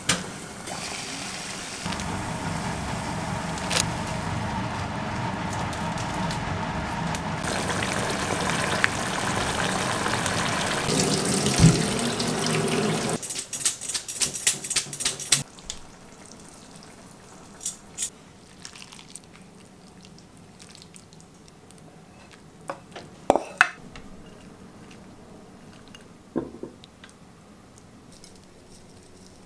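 Kitchen tap running into the sink for about thirteen seconds, then shut off, followed by a few scattered clinks and knocks of dishes.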